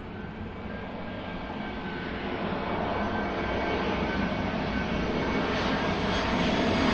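Jet airliner engine noise, a dense roar with a faint high whine, growing steadily louder throughout.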